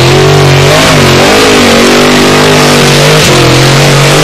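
Formula Offroad buggy's engine revving hard as it climbs a steep dirt hill, its pitch rising and falling with the throttle. Loud throughout.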